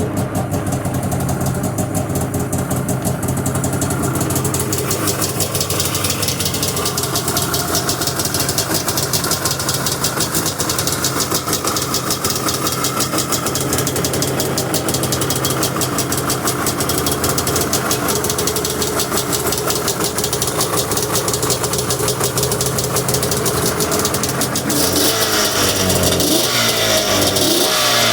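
Fuel-injected two-stroke twin of a 2009 Arctic Cat Crossfire 600 snowmobile idling steadily just after a cold start. In the last few seconds it turns rougher and a little louder, its pitch wavering.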